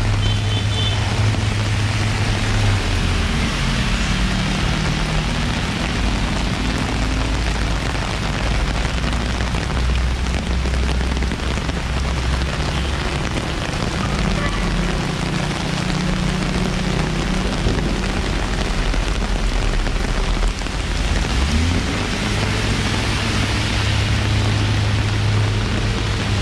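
Heavy rain falling steadily on pavement and the road, with the low hum of traffic engines underneath that shifts in pitch a few times.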